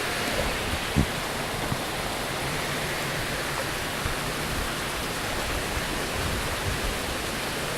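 Heavy rain falling steadily in a downpour, with a light knock about a second in.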